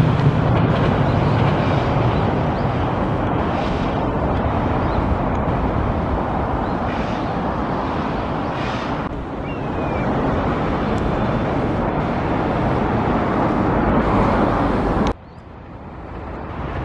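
Steady outdoor noise with wind buffeting the microphone. The low rumble of a passing electric train fades out in the first second. About fifteen seconds in the noise drops away suddenly, then slowly builds back.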